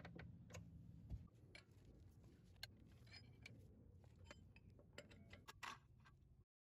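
Faint scattered clicks and light knocks from hand work on the car's parking brake, lug wrench and jack, over a low steady rumble. The sound cuts off abruptly near the end.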